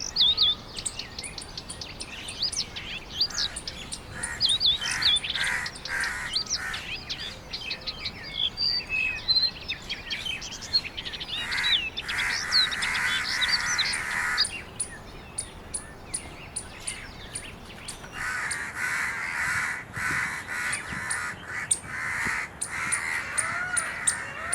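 Wild birds calling: many quick chirps and whistles at first, then long runs of harsh, raspy calls about halfway through and again through the last quarter.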